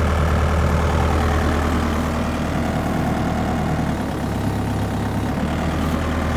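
Mini excavator's diesel engine running steadily as the track is driven slowly around. The engine note shifts briefly about four seconds in.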